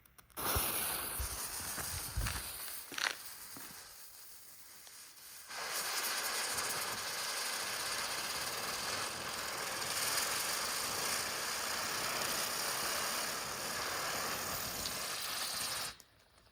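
Firework ground spinner (emoji spinner) burning. A weaker hiss comes as it is lit; about five seconds in it ignites into a loud, steady hiss of burning that lasts about ten seconds and cuts off suddenly near the end as it burns out into its colored smoke effect.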